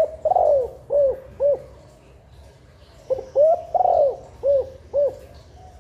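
Spotted dove cooing: two phrases of about five rounded coo notes each, the second starting about three seconds in.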